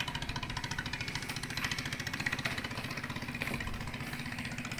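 The standard Mitsubishi GM 40 engine of a ketinting longtail racing boat running steadily on test, with a rapid, even chatter of firing pulses.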